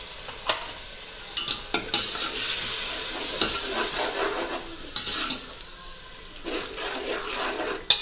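Onion-tomato masala with spices sizzling in hot oil in a metal pot while a steel ladle stirs it, clicking and scraping against the pot several times. This is the masala being fried (bhuna) until the oil separates.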